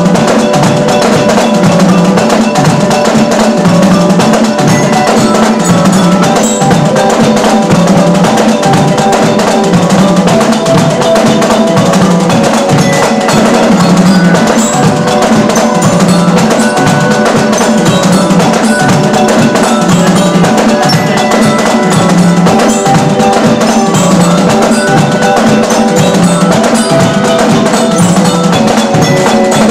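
Marching band music: drums keeping a steady march beat under a melody with bell-like glockenspiel notes.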